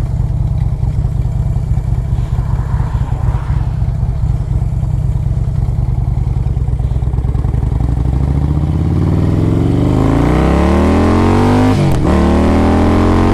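Screaming Eagle 113 cubic inch V-twin of a 2007 Harley-Davidson Road Glide, with a loud exhaust. It runs at low speed with an uneven, low rumble, then accelerates hard from about eight seconds in. Its pitch climbs, drops at an upshift about twelve seconds in, and climbs again.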